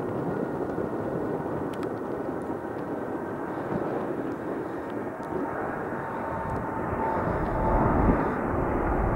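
Boeing 787-9 Dreamliner's jet engines at takeoff thrust during its takeoff roll: a steady rush of jet noise with a faint whine. A deep rumble grows louder over the last couple of seconds.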